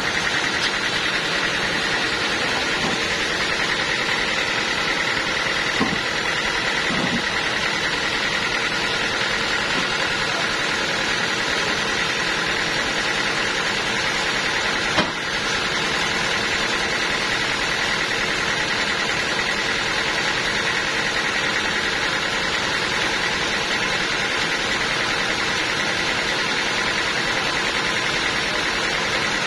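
Sawmill saw machinery running steadily: a constant mechanical drone with a steady high whine. A single sharp knock comes about halfway through.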